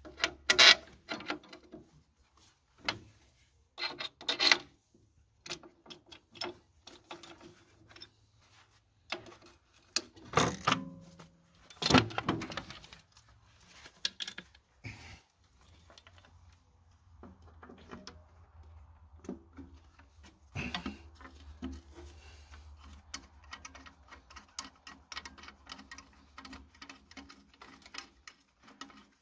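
Steel parts of a tractor seat mount being handled: irregular clanks, knocks and scraping of metal on metal, with several sharper knocks.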